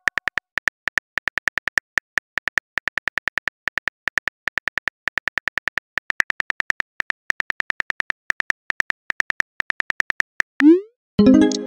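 Phone-keyboard key clicks from a simulated text being typed, about five short even clicks a second, one per letter. Near the end a quick rising whoosh as the message is sent, then an electronic tone begins.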